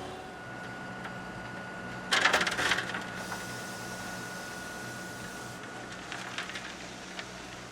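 Road-building machinery running with a steady hum and a thin, high whine. About two seconds in there is a loud burst of metallic clattering lasting under a second, and a shorter, weaker rattle comes near the end.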